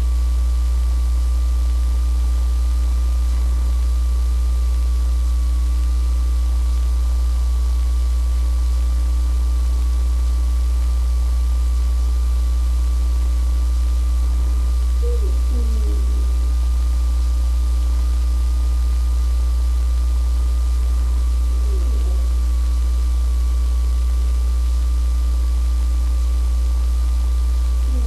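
Loud, steady electrical hum with a thin steady whine above it, the noise of the recording itself, with a few faint, brief gliding sounds about halfway through.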